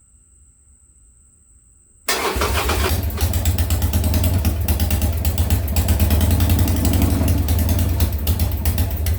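Harley-Davidson Sportster XLH air-cooled V-twin engine starting on its first start after a top-end rebuild: it fires up suddenly about two seconds in, gets louder a second later, and runs with rapid, even firing beats before cutting off near the end and dying away.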